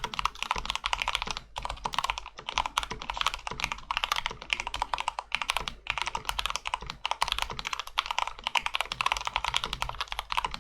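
Fast, continuous typing on a modded Phantom tenkeyless mechanical keyboard: a rapid stream of key clacks, several a second, broken by short pauses every few seconds.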